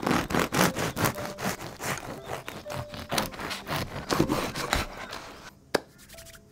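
Serrated bread knife sawing through the crisp crust of a freshly baked baguette on a wooden cutting board: rapid back-and-forth strokes with crackling crust, for about five seconds. A single knock follows near the end.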